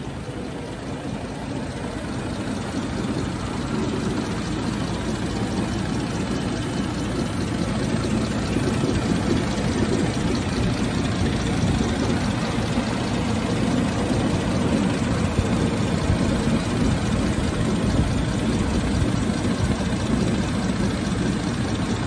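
1930 Rolls-Royce Phantom II Continental's 7.7-litre straight-six engine running at idle, getting a little louder over the first several seconds, then holding even.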